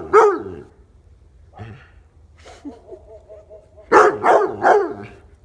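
A dog barking: one bark just after the start, then three loud barks in quick succession about four seconds in.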